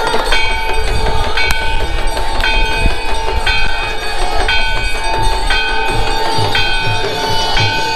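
Temple aarti: a bell struck in a repeating pattern about once a second over a steady horn-like drone, with low drum beats coming in more strongly in the second half.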